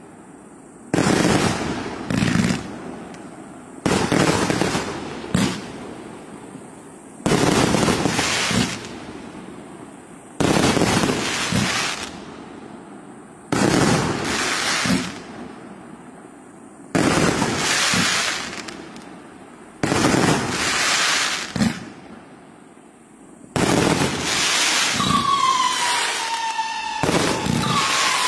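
A King Guan Du 1000-shot fireworks cake firing in volleys: a sudden group of shots and crackle about every three seconds, each dying away before the next. In the last few seconds a shrill whistle joins in, falling slightly in pitch.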